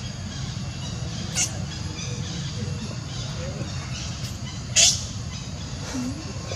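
Young macaques giving two short, sharp squeaks, the second louder, over steady low background noise.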